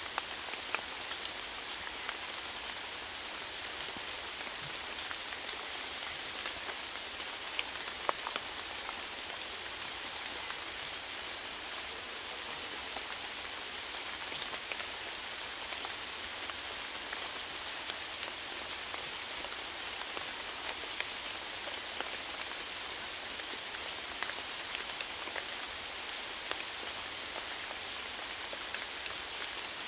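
Steady rainfall, an even hiss with many separate drops ticking on a surface.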